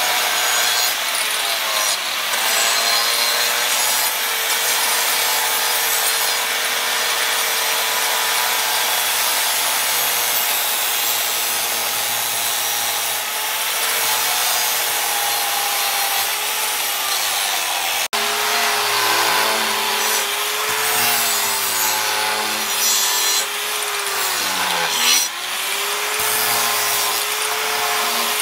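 Angle grinder's wheel grinding the edge of a steel machete blade forged from a leaf spring: a steady motor whine over the rasp of the wheel on the steel. The motor's pitch wavers, and it sags briefly under heavier pressure near the end.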